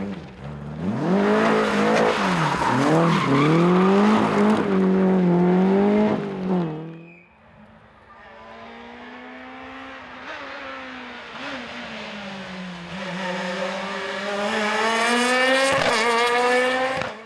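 Rally car engines at full throttle on a special stage. One car revs hard, its pitch rising and falling through gear changes, then drops away sharply about seven seconds in. A second car's engine then builds steadily louder as it approaches, and cuts off abruptly at the end.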